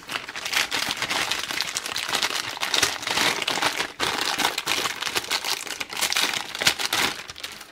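Metallised anti-static bag crinkling and crackling as hands pull it open to get the hard drive out, with a brief pause about halfway through.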